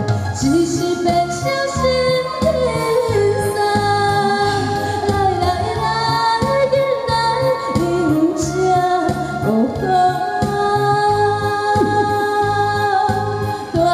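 A woman sings through a handheld microphone, holding long notes, over a music accompaniment with a steady beat.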